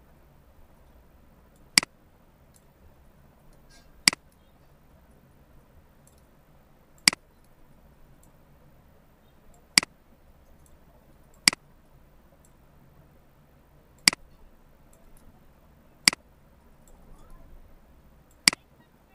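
Computer mouse button clicking: eight single sharp clicks, a couple of seconds apart.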